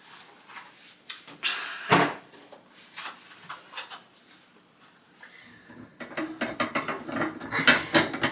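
Hard objects being handled: a few separate knocks and clicks, then a dense clattering rattle from about six seconds in.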